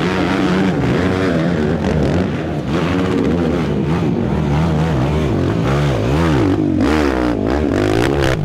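Race ATV engines revving hard under load up a steep dirt hill climb, the pitch rising and falling over and over as the throttle is worked, with the most rapid swings near the end.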